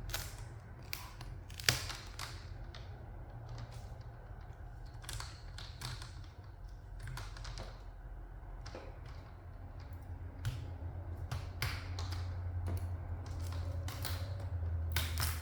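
Plastic laptop screen bezel being pried loose with a guitar pick: scattered irregular clicks and snaps as its clips and light adhesive let go, one sharper snap a couple of seconds in and a run of clicks near the end. A low steady hum sits underneath.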